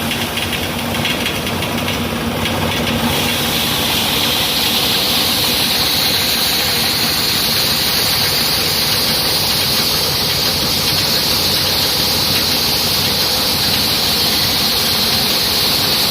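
Hammer mill running steadily and loudly, a dense mechanical noise, with a high whine that comes in about three seconds in and then holds.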